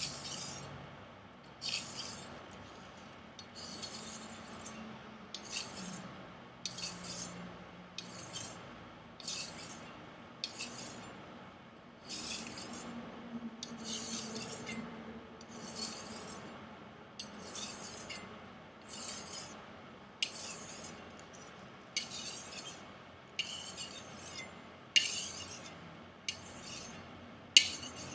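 A Chinese chef knife's blade being stropped freehand on a board loaded with black compound: short scraping swishes, about one stroke a second, some starting with a sharper tick. The strokes refine the edge into a micro-convex edge. The loudest stroke comes near the end.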